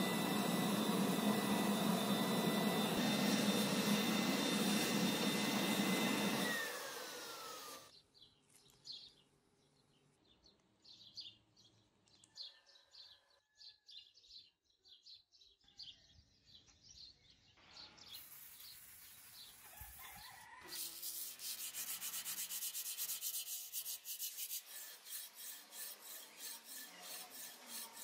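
A forge burner runs with steady noise and a thin whistling tone, which glides down in pitch and stops about six or seven seconds in. A quiet stretch of scattered faint clicks follows. About twenty seconds in, quick rhythmic rubbing strokes begin on the blade by hand.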